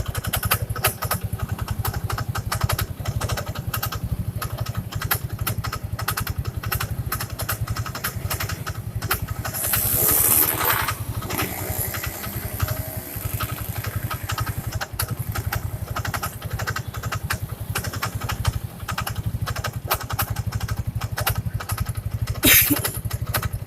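First-generation Yamaha Mio scooter's single-cylinder engine idling with a rough, rapid knocking from the CVT area, the 'kruk kruk' idle noise that the mechanic suspects is a part in the CVT cover rubbing at the front of the crankshaft. A louder hissing stretch comes about ten seconds in, and a short loud burst near the end.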